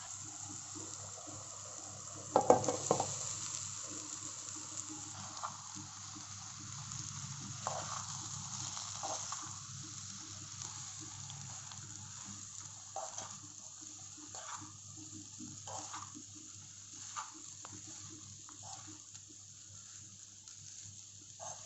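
Leftover rice and potatoes frying in a pan with a steady low sizzle. A spatula stirs and scrapes the pan every second or two, loudest about two and a half seconds in.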